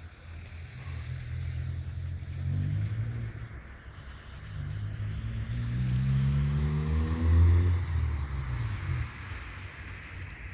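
Honda Civic 1.4S engine and exhaust pulling away under acceleration. The revs climb in the first few seconds, drop back, then climb higher to the loudest point a little past the middle before easing off.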